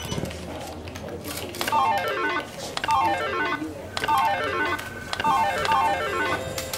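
Music: fast runs of plucked guitar-like notes stepping down in pitch, repeated about five times.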